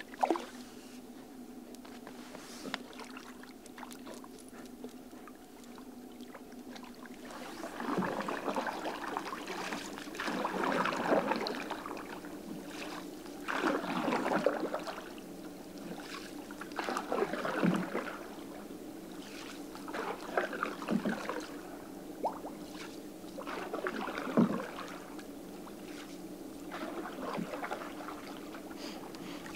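Canoe paddle strokes: the blade swishing and splashing through the water about every three seconds, starting about eight seconds in.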